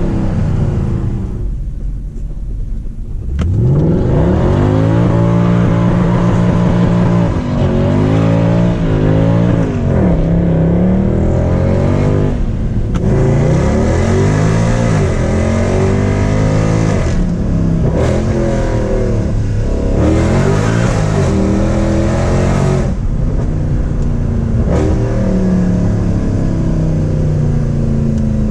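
Naturally aspirated V8 of a Stage 2-tuned Mercedes C63 with its catalytic converters deleted, at full throttle. It eases off briefly near the start, then pulls hard and revs up through the gears, the pitch dropping at each quick shift and climbing again.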